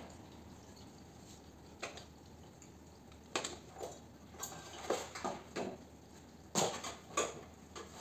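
Scattered metallic clicks, taps and clinks of a hand tool working on the compressor and copper piping of an air conditioner's outdoor unit. The clicks are few at first and come more often from about three seconds in.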